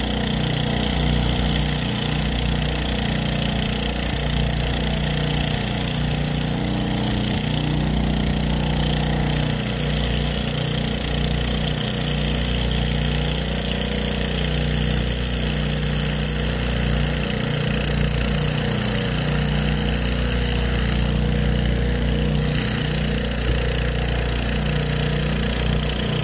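Agricultural crop-spraying drone's rotors giving a steady multi-tone hum as it flies low and close over the field, returning empty to be refilled with pesticide.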